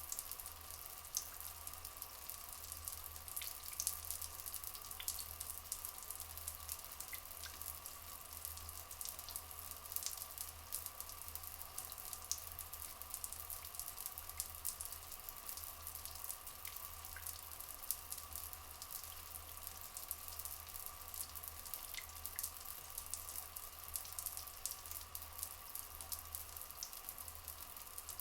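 Rainforest ambience of trickling, flowing water with constant fine drips and splashes, over a faint steady tone, with a few brief faint chirps scattered through.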